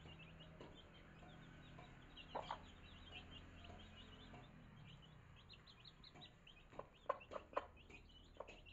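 Chicks peeping constantly in short high notes while feeding, with the mother hen clucking a few times, once about two seconds in and in a quick cluster near the end.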